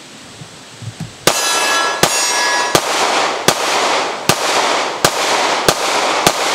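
Kahr CT9 9mm semi-automatic pistol fired eight times at a steady pace, about one shot every three-quarters of a second, starting a little over a second in. Each shot is followed by a short echo.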